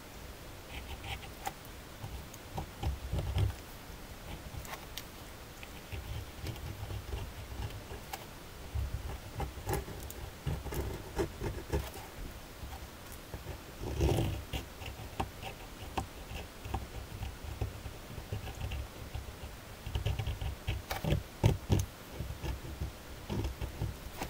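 Ballpoint pen drawing on paper: irregular scratchy strokes and small clicks, with soft low bumps of the hand and paper against the desk.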